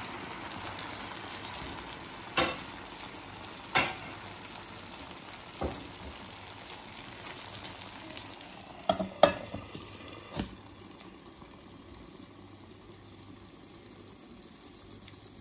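Sauce sizzling and bubbling in a frying pan, with a few sharp pops. About two-thirds of the way through, a glass pan lid is set on with a couple of clicks and knocks, and after that the sizzling is quieter and muffled.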